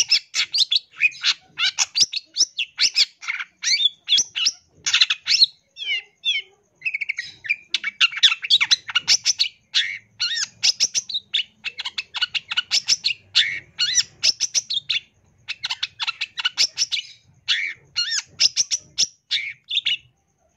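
Long-tailed shrike (cendet) singing a fast, varied string of chirps and trills, with short breaks about six and fifteen seconds in.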